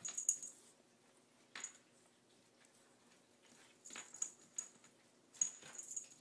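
A puppy and a cat play-fighting on a hardwood floor: faint scuffling with a few brief, sharp bursts of noise as they tumble, at the start and again about a second and a half, four and five and a half seconds in.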